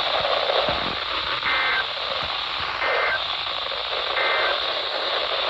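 Radio receiver static: a steady hiss with three short beeps about a second and a half apart.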